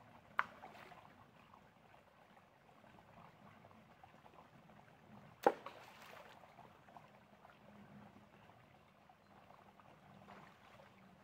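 Shallow stream trickling faintly over stones, broken by two sudden splashes, a small one just after the start and a louder one about five seconds in.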